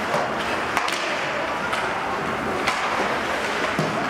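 Ice hockey play: skates scraping the ice and scattered sharp clacks of sticks on the puck, about one a second, over a steady rink noise.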